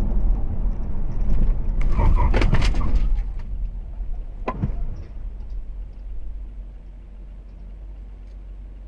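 Steady low rumble of a moving vehicle, with a cluster of sharp knocks and bangs about two to three seconds in and one more knock about halfway through. The rumble then dies down.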